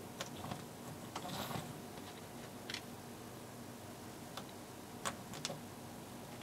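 Small clear acrylic parts clicking and tapping against each other as they are fitted together by hand: a scattering of light clicks, with two sharper ones close together near the end.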